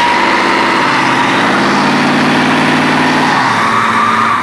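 Pickup truck engines revving hard with rear tires spinning and squealing on pavement as two trucks hooked rear to rear pull against each other. The squeal holds steady and rises slightly in pitch, while the engine note drops back about three seconds in.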